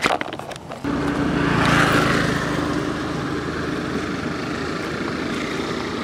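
Knocks and rubbing of the camera being handled, then from about a second in a motorbike engine running steadily, swelling around two seconds in and holding level.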